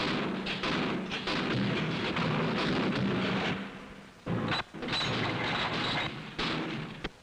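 Rifles being function-fired, with shots coming in quick succession and running together with their echo for the first three and a half seconds, then a few separate bangs. This is the test firing that checks the magazine and action of repeating rifles.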